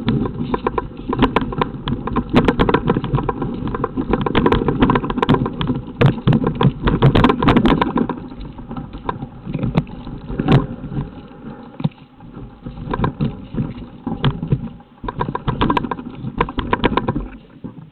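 Footsteps in cycling shoes crunching over loose rock and then snow, with the rattle of a mountain bike being pushed by hand, as irregular clicks and crunches over a low rumble, thinning out after about halfway.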